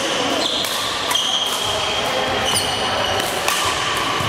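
Badminton doubles rally: rackets smacking the shuttlecock several times, with sneakers squeaking on the court floor, in the echo of a large sports hall.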